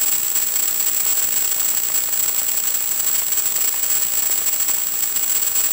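Steady hiss of radio static with a constant high-pitched whine through it, the audio channel of an analog FPV video link as recorded by the receiver.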